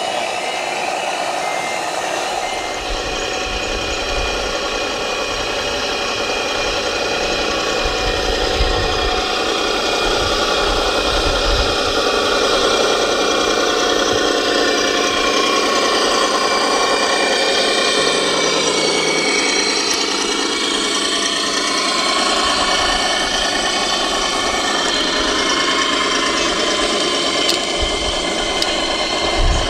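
Scale radio-controlled trucks running, their electronic sound units playing a diesel truck engine at idle and low revs, the note rising and falling a little now and then.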